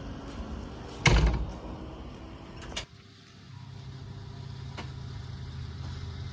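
A JCB Eco Excellence backhoe loader's diesel engine running at a steady idle. The cab door slams loudly about a second in, and a sharp click follows a couple of seconds later.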